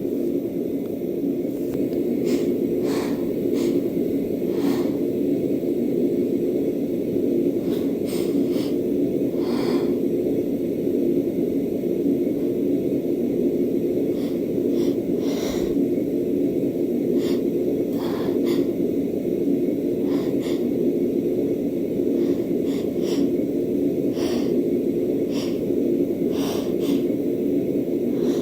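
A woman with a cold sniffing and hitching: a dozen or so short, sharp breaths and false starts toward a sneeze, over a steady low background hum.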